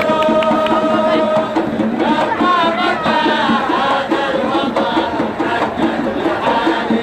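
Traditional Hadhrami 'idda folk music: double-headed hand drums beating a quick, steady rhythm, with a held, wavering melody over it.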